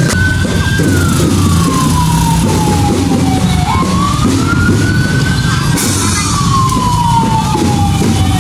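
A siren wailing in slow sweeps: its pitch climbs to a peak, slides down over about three seconds, then jumps back up and climbs again, twice over, with a steady low rumble underneath.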